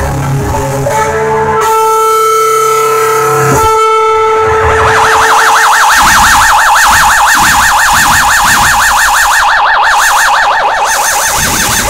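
Electric guitar through effects: held, ringing tones for the first few seconds, then a fast-wobbling, siren-like tone that sets in about four seconds in and keeps going.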